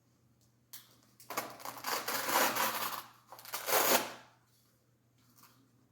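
Blood pressure cuff being taken off the arm: its Velcro tears open with a crackling rip in two pulls, the second shorter.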